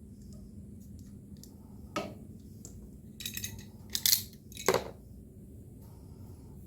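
Hand tools and small metal parts clicking and clinking during hose-and-clamp work on a mower fuel line: a single click about two seconds in, then a quick cluster of sharp clinks, the loudest about four seconds in.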